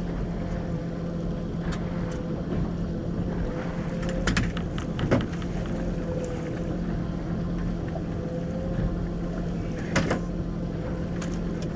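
Boat motor running at a steady low hum, with a few short knocks and clicks, the sharpest about five seconds in and about ten seconds in.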